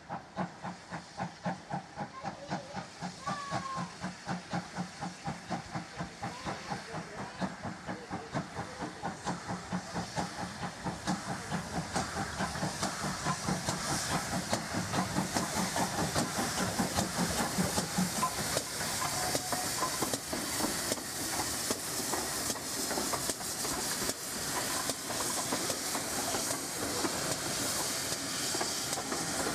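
GWR 2800 class 2-8-0 steam locomotive 2857 working a train away, its exhaust chuffing in a steady beat over a hiss of steam, growing louder as it approaches and passes.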